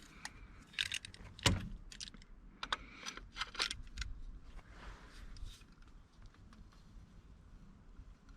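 Light metallic clicks and taps of hand tools being handled and set against a snapped, seized bolt, the loudest about a second and a half in and a cluster of them a little later, thinning out over the last couple of seconds.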